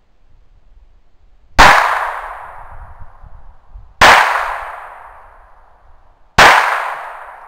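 Three gunshots about two and a half seconds apart, each sharp crack dying away in a long echoing tail.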